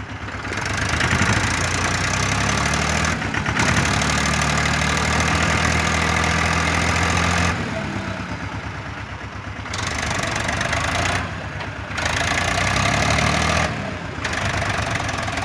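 Diesel farm tractor engine revving hard under load as the tractor struggles stuck in deep mud: one long high-revving surge, a drop, then shorter surges that rise and fall in pitch.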